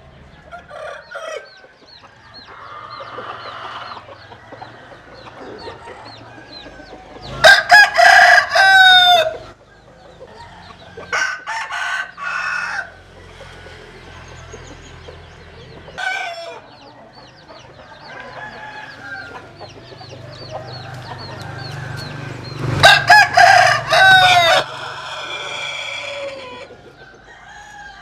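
Roosters crowing: one loud crow about a quarter of the way in and another about four-fifths through, each lasting about two seconds and broken into several notes. A quieter crow follows the first, and softer chicken calls fill the gaps.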